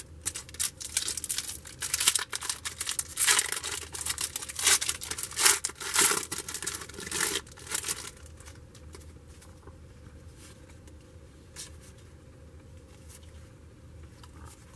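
A football trading-card pack wrapper being torn open and crinkled by hand, a dense rustling crackle that lasts about eight seconds. Then it goes quieter, with a few light ticks as the cards are handled.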